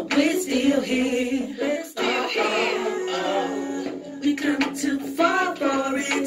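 Music with a woman's singing voice over a steady backing.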